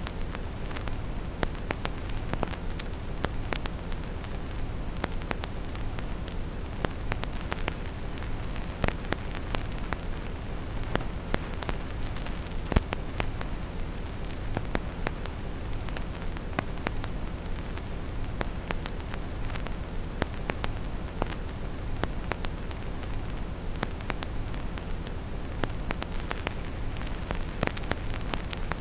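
Vinyl record crackle: irregular clicks and pops from the needle in the groove, one louder pop about halfway through, over a steady, deep brown-noise rumble.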